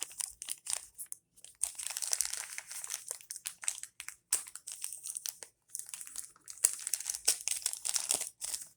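A small toy blind-bag package crinkling and tearing as it is opened by hand, in irregular bursts of rustling.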